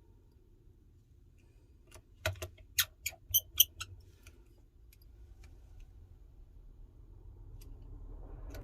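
Small sharp clicks and taps of repair tools and small metal parts on an iPhone 12's internals: about six in quick succession, starting about two seconds in, over a faint steady low hum.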